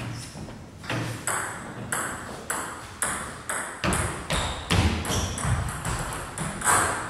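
A table tennis ball bounced again and again, sharp pings about two a second that come faster toward the end: the server bouncing the ball before serving.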